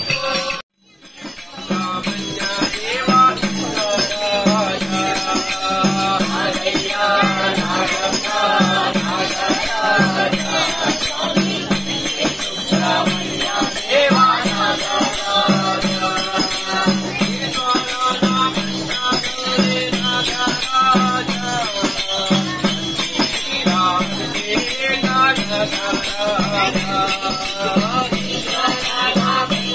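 A group of voices singing a devotional song together, kept in time by a hand frame drum and jingling hand percussion with a steady beat. The sound cuts out briefly about a second in.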